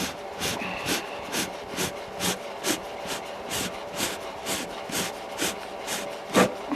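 3D-printed plastic parts of a model artillery shell rubbing together in short rasping strokes, about two a second, as they are twisted together by hand, with two louder knocks near the end.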